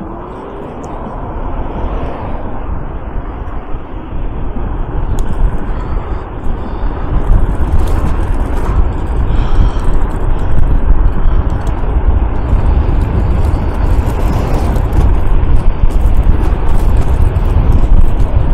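Wind buffeting a chest-mounted microphone on a moving electric scooter, a dense low rumble mixed with road noise. It gets louder about two seconds in and again from about seven seconds on.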